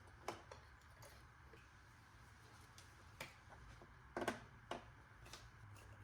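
A handful of faint, sharp clicks and light knocks, two close together about four seconds in, as ignition coil packs are handled and seated on a 3.2 VR6 engine.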